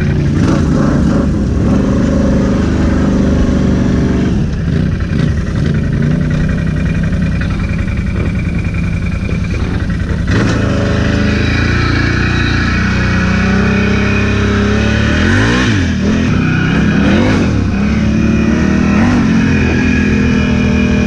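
ATV engine running loud and close while the quad is ridden, its pitch shifting with the throttle. It picks up about halfway through, then revs up and down several times in quick succession a few seconds later.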